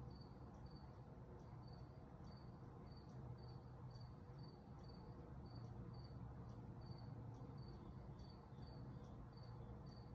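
Near silence with faint, short, high chirps repeating evenly about twice a second, as from a cricket, over a low steady hum.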